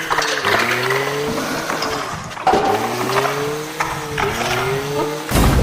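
A race-car engine revving sound effect, its pitch climbing and starting over again about five times. Near the end a sudden loud burst of crash noise comes in.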